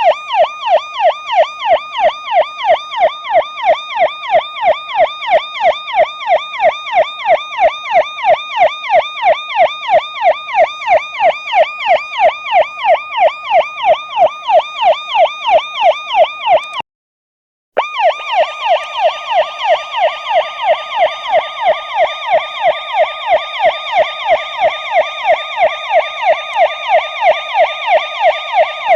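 Police car siren in its fast yelp pattern: a loud pitch sweeping rapidly up and down, about three times a second. It cuts out for about a second partway through, then resumes.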